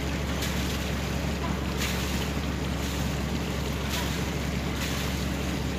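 Steady low hum, as of a motor running, under wind noise on the microphone.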